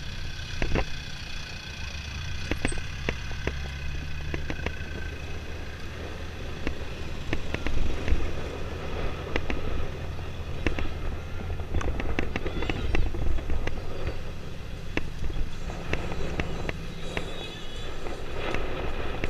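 Motorcycle engine running at low speed, a steady low hum, with many short sharp crackles scattered through it.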